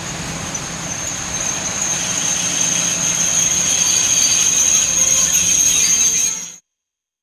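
Train wheels squealing on rails: a steady high-pitched screech over rumbling noise, growing louder, then cutting off suddenly near the end.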